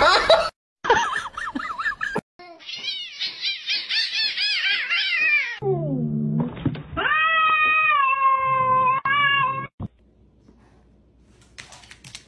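Domestic cats meowing and yowling: a quick run of short rising-and-falling calls, then a call sliding down in pitch and a long drawn-out yowl that breaks off suddenly about ten seconds in.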